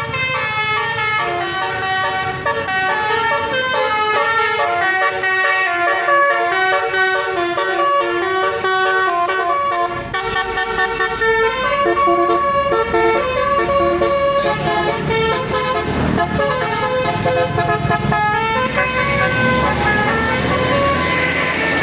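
Bus 'basuri' telolet horn playing a long tune of stepped musical notes. From about halfway a bus engine rumbles underneath, and engine and road noise grow louder near the end.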